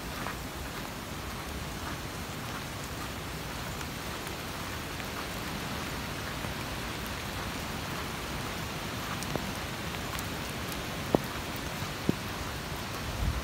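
Steady rain, an even hiss with a few scattered sharp ticks like drops striking something, the clearest about eleven seconds in.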